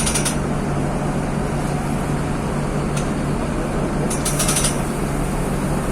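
Mercedes-Benz OF-1724 bus's OM-926 LA inline-six turbodiesel running steadily at an even speed. Brief clusters of high rattling clicks come just after the start and again about four seconds in.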